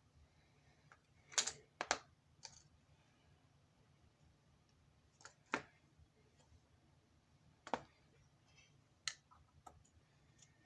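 A handful of separate light clicks and taps, about eight or nine, scattered irregularly over a quiet background: small objects being handled and set down while hands are cleaned of swatched makeup.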